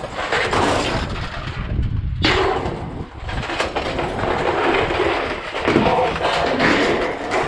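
Scrap metal being unloaded: pieces clanging and crashing down onto a scrap pile, a dense run of loud metal strikes.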